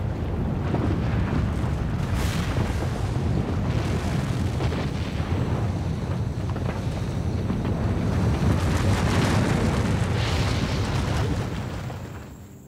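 Sound-effect rumble of a pyroclastic avalanche, the volcanic flow of fire and ash, sweeping over a town: continuous low rumbling with a rushing noise above it that swells a few times, then fades away near the end.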